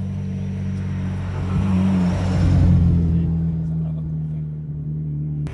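A classic car's engine running with a low, steady note that swells to its loudest a little past midway, then eases off.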